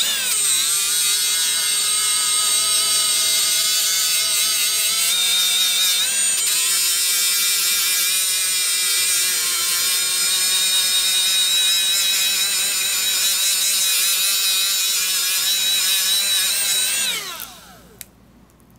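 Small high-speed rotary tool spinning a fine Scotch-Brite pad against the aluminum housing of a straight grinder: a steady high-pitched motor whine that shifts pitch a little about six seconds in. Near the end it winds down and stops.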